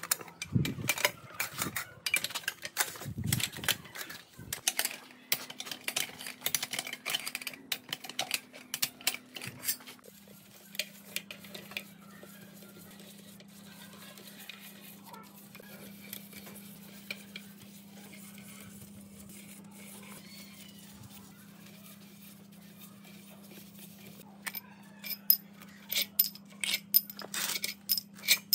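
Metal tools and engine parts clinking and tapping against each other in quick, irregular strokes for about the first ten seconds and again near the end, with a steady low hum in between.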